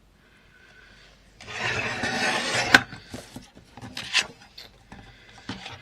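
Sliding-blade paper trimmer cutting a sheet of paper: a rasping slide of about a second and a half that ends in a sharp click, then a few lighter clicks.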